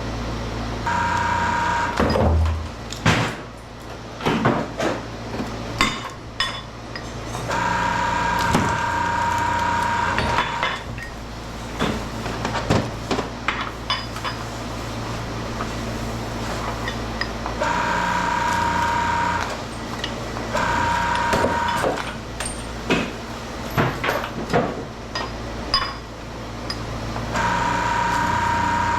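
Metal pieces clanking and knocking over a steady machine hum, with a whine that comes on for a second or two at a time, five times.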